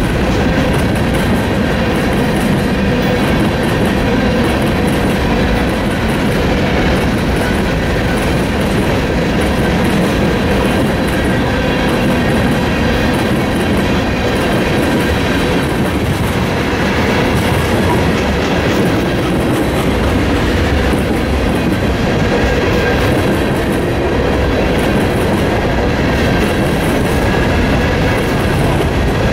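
Freight train rolling past steadily at close range, its wheels clacking over the rails.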